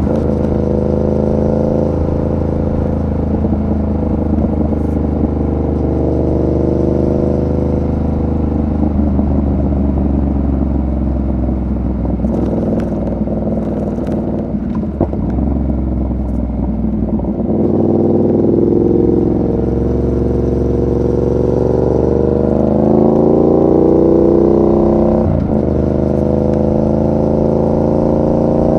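2019 Yamaha MT-07's 689 cc parallel-twin engine running on the road at the rider's position. Its pitch holds fairly steady, drops about halfway through, then climbs over several seconds as the bike accelerates, with one brief sharp knock near the end.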